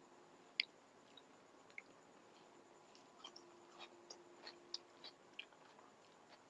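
Quiet eating sounds: scattered soft clicks and smacks of chewing, the sharpest about half a second in and a cluster of them around the middle.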